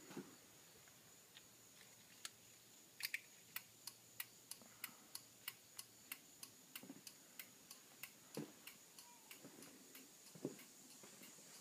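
A car's flasher relay ticking evenly, about three clicks a second, as its turn-signal lamps blink.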